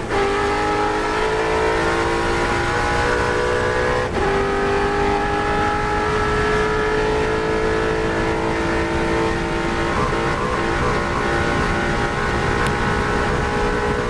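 Holden HQ Monaro race car's V8 engine at full throttle, heard from inside the cockpit, with wind and road noise. The pitch drops on an upshift right at the start and again about four seconds in, then climbs slowly and levels off as the car nears top speed on the straight.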